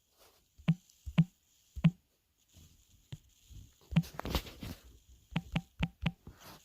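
A series of about ten light, irregular knocks and taps, with a brief rustle about four seconds in, like handling noise in a small room.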